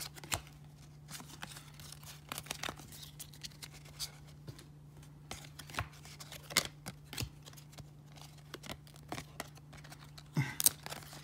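A stack of 1994 Topps baseball cards being thumbed through by hand: the card stock slides and snaps against itself in a run of irregular light clicks, the old cards partly stuck together. A steady low hum runs underneath.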